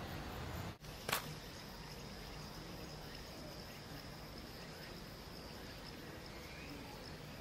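Faint outdoor ambience with an insect trilling: short high chirps at first, then one steady high-pitched trill. A brief dropout just under a second in is followed by a single sharp click.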